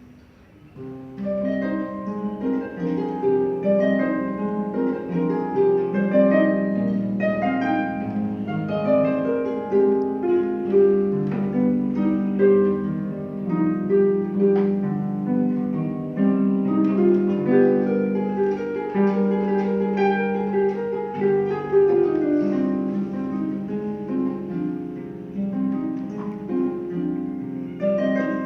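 Pedal harp being played: a continuous passage of plucked notes that ring on and overlap, entering about a second in after a brief hush.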